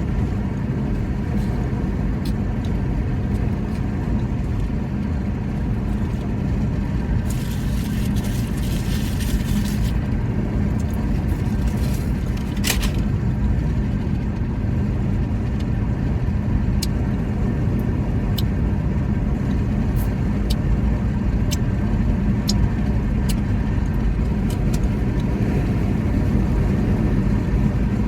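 Steady low rumble of a vehicle engine with a faint constant hum. A short hiss comes about seven seconds in, and small clicks are scattered through it, one louder near the middle.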